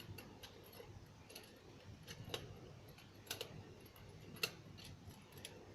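Faint, irregular clicks of a butterfly knife comb as its handles and comb blade knock together while it is flipped open slowly, the sharpest about two and a half and four and a half seconds in.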